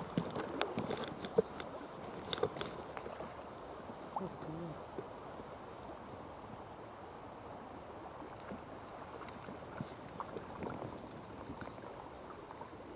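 Shallow river water flowing and lapping close to the microphone, a steady rush of water noise. A few sharp clicks and small splashes come in the first three seconds, then the flow runs on evenly.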